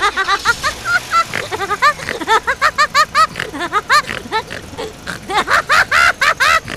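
High-pitched giggling laughter: a rapid run of short rising-and-falling 'ha' sounds, several a second.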